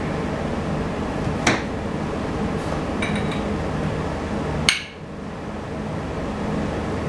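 Metal hand tools and engine parts clinking: two sharp metallic clinks, about a second and a half in and louder near five seconds, with a faint rattle between. A steady background hum runs underneath.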